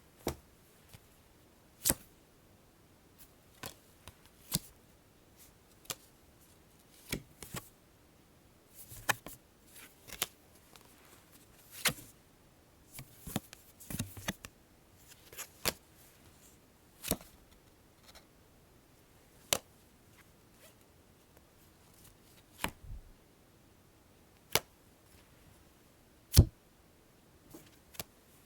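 Playing cards being drawn and dealt onto a table: a series of short, sharp card snaps and flicks, some single and some in quick little clusters, spaced irregularly every second or two.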